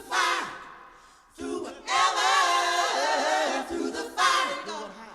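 Several voices singing together in close harmony with no instruments, in three held phrases with short breaks between them; the longest and loudest sits in the middle.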